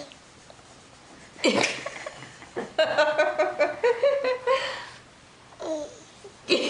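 Laughter in choppy bursts starting about a second and a half in, with a few shorter laughs near the end.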